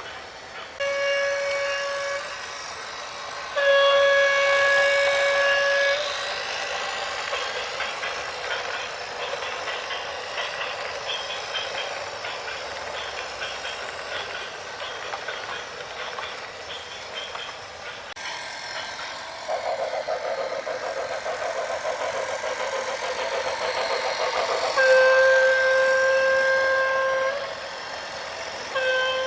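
A vehicle horn sounding in steady blasts: a short one, a longer one a few seconds later, another long one near the end and a fourth starting at the close. Between the blasts a continuous noisy rush of machinery or traffic runs on.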